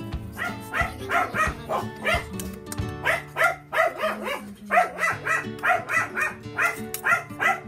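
A dog barking in a quick series of short barks, about three a second, over background music.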